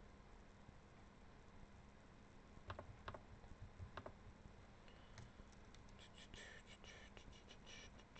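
Faint clicking of computer keyboard keys over a low steady hum: a few separate taps, then a quick run of typing from about five seconds in.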